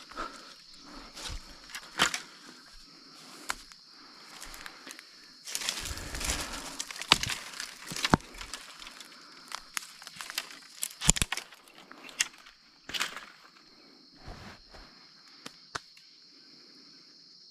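Dry sticks and brush cracking and rustling in irregular snaps, with a longer rustle about six seconds in, as firewood is gathered. A steady high-pitched drone runs underneath.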